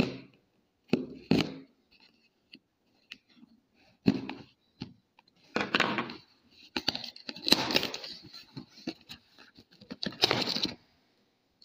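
Packing tape being peeled off a cardboard shipping box, with the cardboard scraping and rustling under the hands, in about five separate pulls, the longest near the middle.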